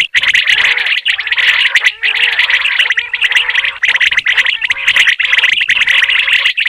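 Common quail calling: a dense, unbroken run of rapid high clicking notes.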